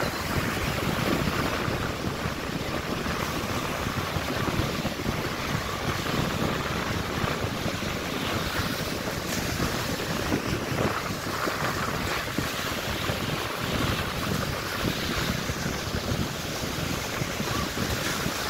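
Ocean surf breaking and washing up the beach, a steady rushing noise, with wind buffeting the microphone.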